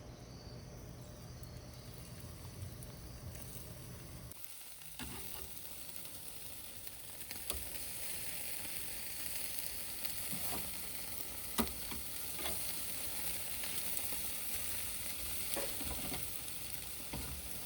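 Food sizzling as it cooks, a steady hiss starting about four and a half seconds in, with a few sharp clicks scattered through it.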